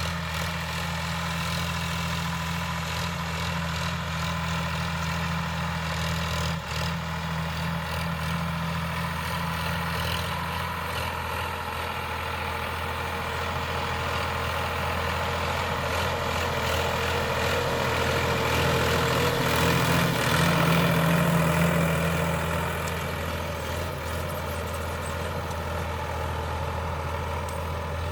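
Sonalika DI 745 III tractor diesel engine running steadily under load while pulling a plough through dry soil. It grows louder from about halfway through, peaks a few seconds later, and then settles back.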